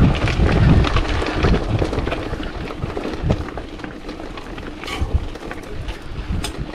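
Mountain bike riding over a rocky dirt trail: wind rumbling on the microphone, tyres crunching over the ground, and the bike knocking and rattling over the bumps. The rumble is strongest in the first couple of seconds and then eases off.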